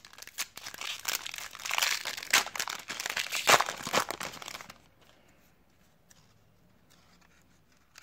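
Foil wrapper of a baseball card pack being torn open and crinkled, a dense crackling that stops about five seconds in. After that only a few faint light clicks.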